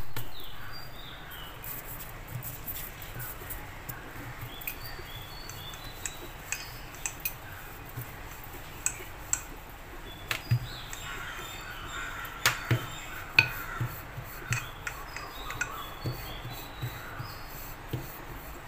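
Hand-rolling paratha dough on a floured countertop: soft pats, a wooden rolling pin working the dough, and scattered light clicks and clinks from the pin and bangles. These clicks grow more frequent in the second half. Faint short high chirps sound in the background.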